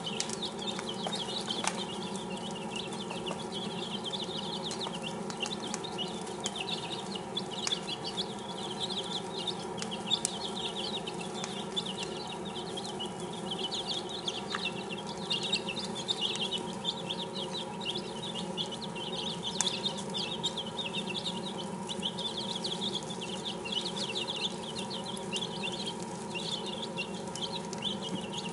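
Six-day-old chicks peeping continuously, a dense run of short high chirps, over a steady low hum. A few sharp clicks stand out now and then.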